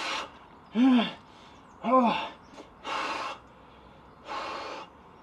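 A man breathing hard and deliberately while sitting in an ice bath, about one breath a second. Two of the breaths are voiced gasps or groans that rise and fall in pitch, and the others are forceful noisy blows through pursed lips. This is controlled breathing against the cold shock of the ice water.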